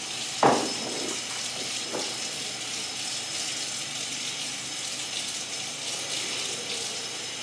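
Tap water running steadily into a sink, with a sharp knock about half a second in.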